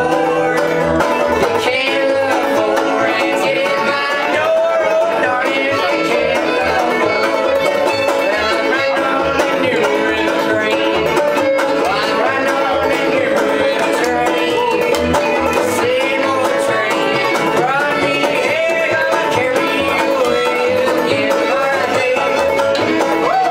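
Live bluegrass instrumental on fiddle, banjo and upright bass, the plucked bass keeping a steady beat under the banjo and fiddle.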